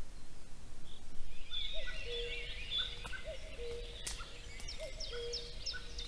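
Wild birds singing in woodland, starting about a second and a half in: several birds chirping and trilling high up, with a low two-note call, the second note lower, repeated about every one and a half seconds. A low rumble lies under it throughout.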